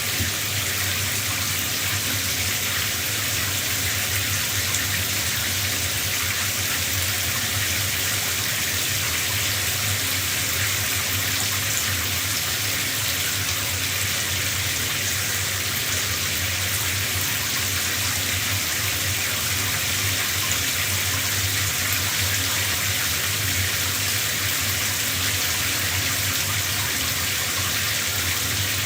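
Shower running steadily, a constant hiss of water spraying and splashing, with a low hum underneath.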